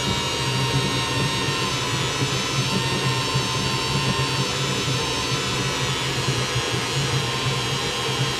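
Milwaukee M18 cordless drill running steadily without a break, its motor turning a tip-up reel to wind braided line onto it; an even motor whine with no change in speed.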